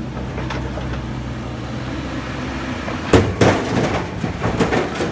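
Heavy equipment engine running steadily, then a string of sharp, loud knocks and clanks starting about three seconds in.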